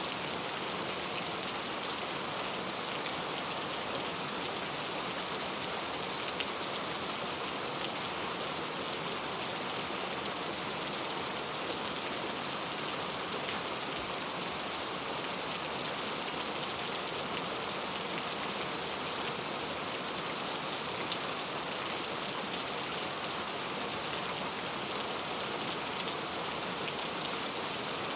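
Heavy rain falling steadily: an even hiss of rain on a surface, with fine drop patter throughout.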